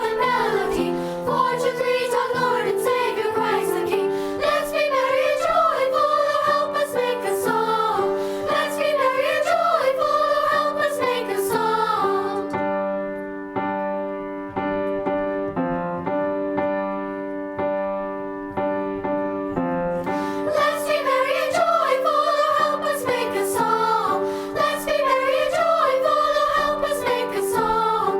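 Voices singing with piano accompaniment. For several seconds in the middle the singing stops and the piano plays alone, then the voices come back in.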